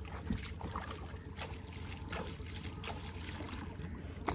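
Shallow water splashing and sloshing with light knocks as a plastic kayak is pulled and turned at the water's edge, over a steady low rumble.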